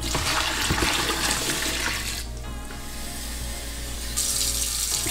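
Brine being poured into a plastic bin over whole game hens, a steady splashing flow that dips briefly about two seconds in and grows stronger near the end.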